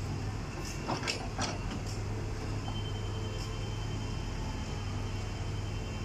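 Diesel engine of a tracked excavator running steadily under load as it works, a low drone with a few knocks about a second in. A thin, high, steady whine joins partway through.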